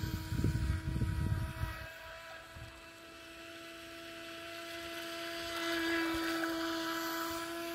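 Small brushed electric motor of an HJ808 RC speedboat whining steadily at full throttle. A low rumble fills the first two seconds. The whine fades a little, then grows louder and is loudest about six seconds in.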